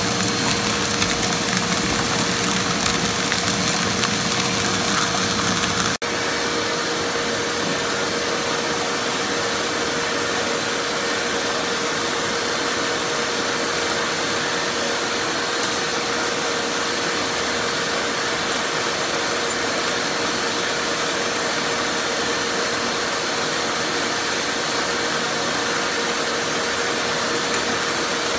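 Shop vac running steadily, drawing air up a homemade air-column separator that lifts cracked black walnut shell pieces away from the nut meats. It has a steady whine throughout. A lower rumble drops out abruptly about six seconds in.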